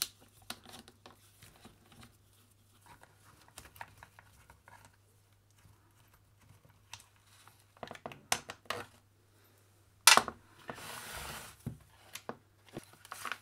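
Small clicks and taps of a screwdriver and the plastic handle shell of a rotary hammer as the handle is unscrewed and taken off the housing. A sharp knock about ten seconds in is followed by a second or so of scraping rustle.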